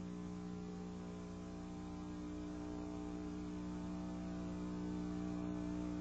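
Low steady hum of several held tones, slowly growing louder.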